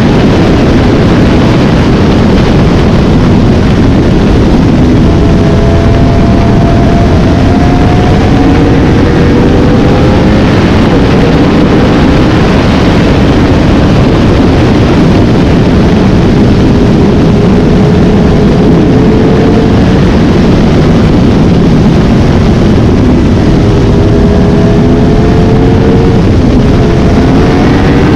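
Yamaha R1 crossplane inline-four motorcycle engine running under way, loud and steady, its pitch climbing slowly and dropping back several times.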